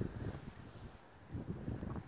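Wind buffeting the microphone: an irregular low rumble that eases about halfway through and gusts up again briefly near the end.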